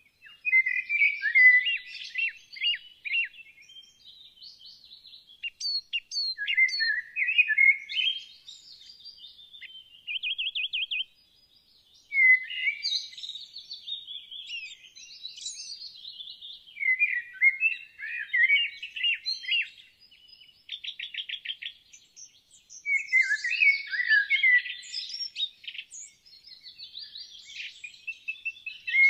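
Songbirds singing a run of varied chirping phrases with short pauses between them, including a couple of fast trills.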